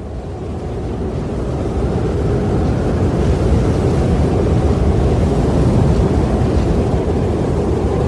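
Wind blowing as a steady, low rushing noise that swells in over the first two or three seconds and then holds even.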